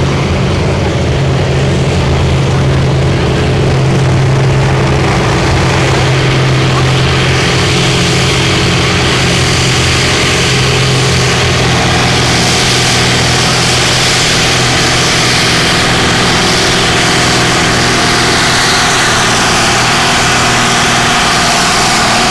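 Pulling tractor's diesel engine running hard under load as it drags a weight sled. A steady low engine note is joined about seven seconds in by a louder hiss, and from about twelve seconds by a higher whine.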